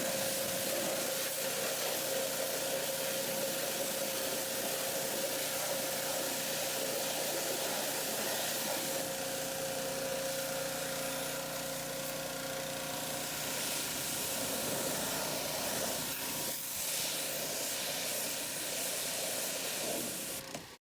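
Pressure washer running and spraying water: a steady hiss with a steady whine under it. It cuts off suddenly near the end.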